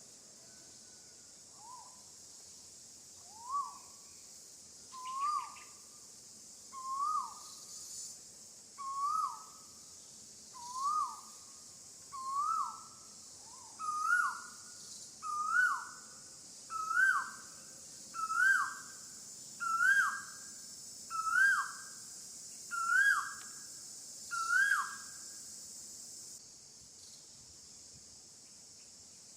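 A bird calling a long series of about fifteen swooping whistled notes, roughly one every second and a half, each one louder and a little higher than the last. A steady high insect drone runs underneath and stops near the end.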